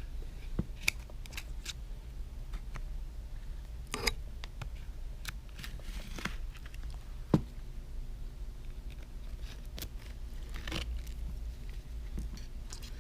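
Scattered small clicks and light scrapes of a prying tool being worked around the edge of an iPhone 6s Plus display to lift it from the frame, with one sharper click about seven seconds in. A steady low hum sits underneath.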